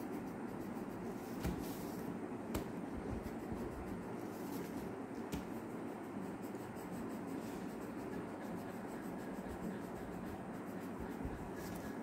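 Coloured pencil scratching on paper in short, intermittent strokes while colouring in, over a steady low background hum, with a few light taps.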